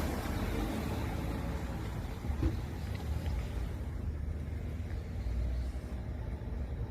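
Steady low rumble of outdoor background noise, with a single short knock about two and a half seconds in.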